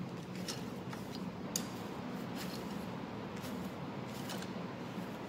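Light metallic clicks, a handful spaced about a second apart, from a hand tool working the camshaft gear bolts as they are tightened, over a steady low hum.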